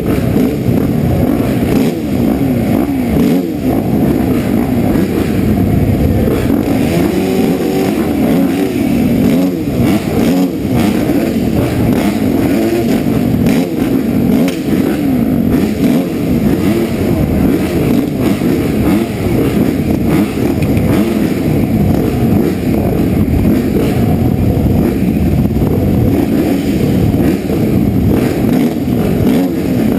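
A row of motocross bikes idling and blipping their throttles at the starting gate, the rider's own Suzuki RM-Z450 four-stroke among them. Many engine notes rise and fall over one another in a steady din.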